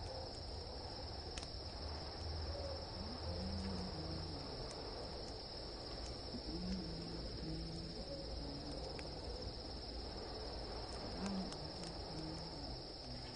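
Crickets chirring steadily in a high, even chorus, with faint short low tones now and then underneath.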